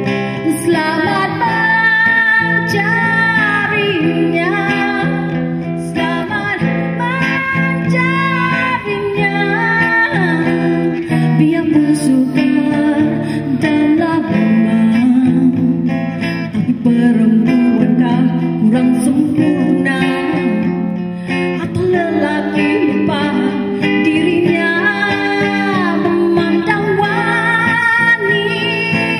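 A woman sings a Malay poem into a handheld microphone over guitar accompaniment.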